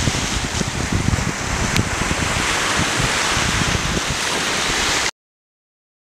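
Sea surf washing over rocks and onto a sandy beach, with wind rumbling on the microphone; it cuts off suddenly about five seconds in.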